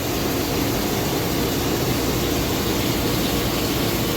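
Steady mechanical hum and whir of a powered-up Nexturn SA-32E CNC Swiss-type lathe, running without cutting, with a faint low steady tone.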